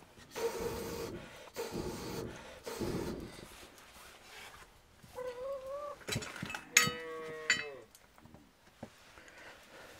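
Cattle mooing: several calls, the loudest about seven seconds in, a long full-throated moo that sags in pitch at its end, after a shorter rising call just before it and breathier calls in the first few seconds.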